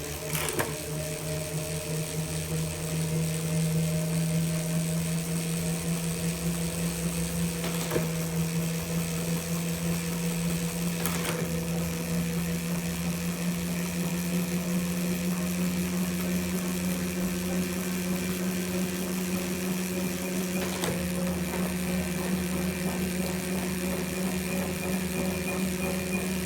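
Tacx Neo direct-drive smart bike trainer running: a steady electric whine and hum that comes up slightly about three seconds in, with a few faint clicks.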